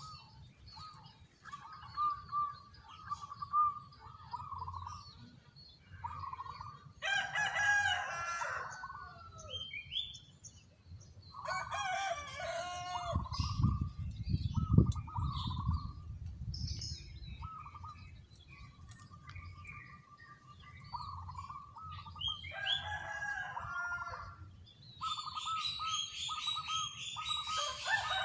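Caged zebra dove (perkutut) cooing: runs of short, even notes and a rolling trill on one pitch. Louder, longer calls from other birds break in several times, over scattered high chirps, with a low rumble in the middle.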